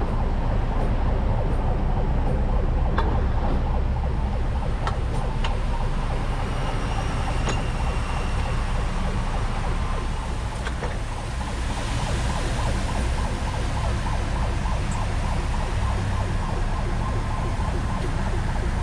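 Heavy truck diesel engine running steadily at a low rumble, with a few sharp clicks and faint high steady tones over it.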